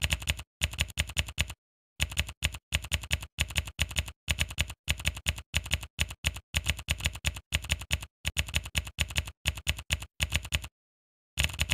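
Typing sound effect of computer keyboard keys clicking in quick runs, with two short breaks in the clicking: one about two seconds in and one near the end.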